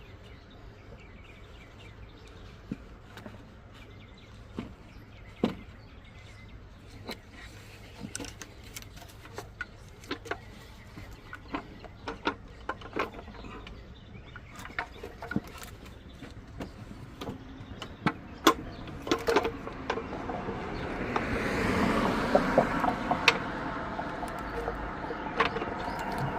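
Irregular sharp clicks and light knocks, like hand tools and parts handled on metal. About twenty seconds in, a louder rushing noise builds and runs on under them.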